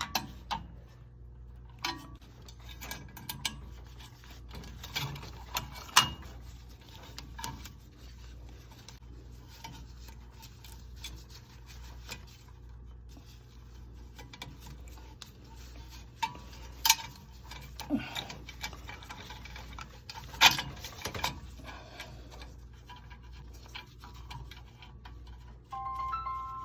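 Scattered sharp metallic clicks and knocks from a screwdriver and hands working the knockouts of a metal aquastat relay box, over a steady low hum.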